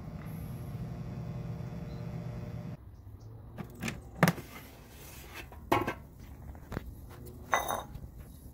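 Gourmia GAF838 air fryer's fan running with a steady hum, cutting out abruptly about three seconds in. Then the basket drawer is pulled out: several knocks and clunks, the loudest about four seconds in, and a short metallic clatter near the end.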